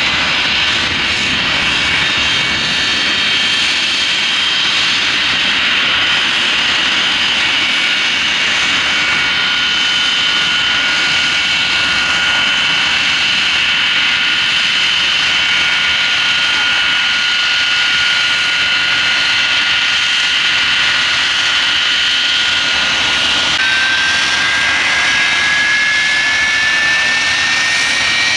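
De Havilland Comet 4's four Rolls-Royce Avon turbojets running as the airliner taxis slowly: a steady high whine over a broad rumble. About 23 seconds in, the whine steps up and climbs in pitch as the engines are given more power.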